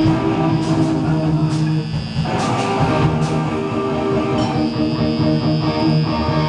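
Amplified electric guitar played loud between songs of a live rock set, held chords and notes ringing, with a few sharp strums.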